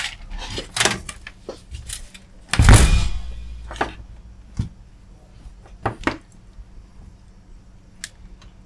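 Handling noise on a workbench: scattered clicks and knocks as the camera is picked up and moved, with one heavy thud about three seconds in.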